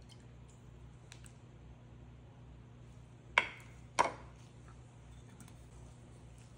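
Two sharp clinks about half a second apart, a little over three seconds in, as a metal measuring spoon and a glass bottle are handled and set down, over a faint steady hum.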